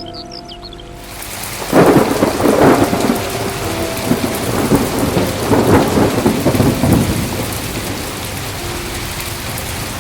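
Heavy rain falling steadily, with a loud roll of thunder breaking in about two seconds in. The thunder rumbles on for about five seconds before fading back into the rain.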